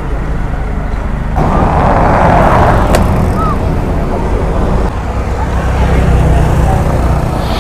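Motor scooter engine idling with a steady low rumble, with a rush of noise from about a second and a half in to about three seconds and a sharp click near three seconds.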